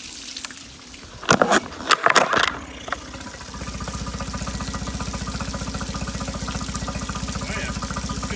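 Mercury 8 hp four-stroke outboard pull-started: a few loud pulls and firings between about one and two and a half seconds in, then the engine catches and settles into a steady idle from about three and a half seconds.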